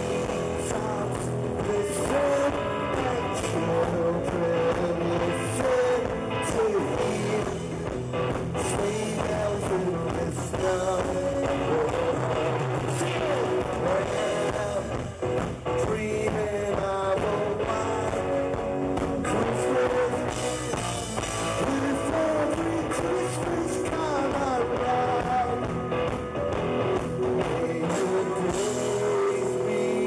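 Live rock band performing: a male lead singer over electric guitar and drums.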